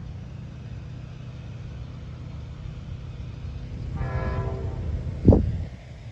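Amtrak P42 diesel locomotive rumbling as it approaches, giving a short horn toot about four seconds in. A brief, loud blip follows just after five seconds.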